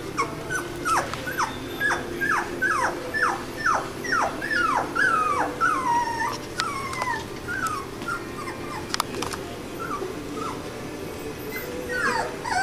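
Three-week-old poodle puppies whimpering. First comes a quick run of short, falling squeaks, then longer whines that waver in pitch. The calls thin out and pick up again near the end.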